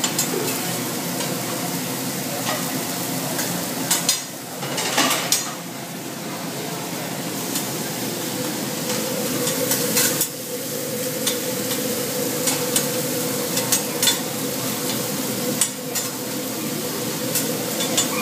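Food sizzling on a hibachi flat-top griddle while a cook stirs and chops noodles and vegetables with two metal spatulas, the blades scraping and clicking irregularly against the steel.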